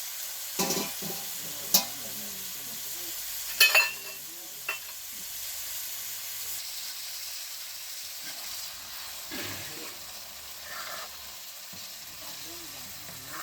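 Food sizzling in a frying pan, with a utensil scraping and knocking against the pan a few times in the first few seconds, the loudest knocks just under four seconds in.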